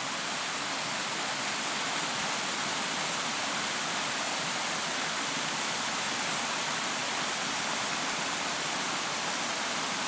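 Steady rush of Dodd Creek, a mountain stream, pouring over a small cascade.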